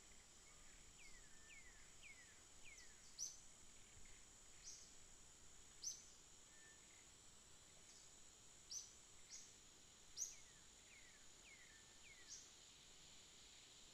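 Forest ambience: a steady high-pitched insect drone, with birds calling over it. There are short, sharp high chirps every second or two, the loudest sounds, and two runs of three or four quick descending whistles, one early on and one near the end.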